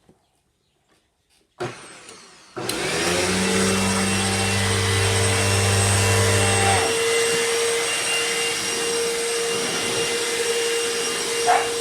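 Royal ProSeries Quick Rewind vacuum cleaner switched on: a click, then about a second later the motor spins up and runs steadily with a high whine. A low hum underneath drops out a few seconds after start-up.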